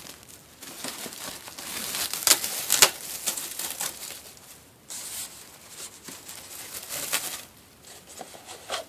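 Packaging crinkling and rustling as a model kit part is unwrapped and handled, with a few sharper crackles between two and three seconds in; the rustling thins out near the end.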